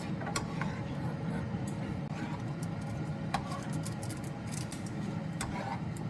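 Scattered light clicks and taps of a spoon against a bowl while the corn cheese mixture of corn, mozzarella, mayonnaise and sugar is stirred, over a low steady hum.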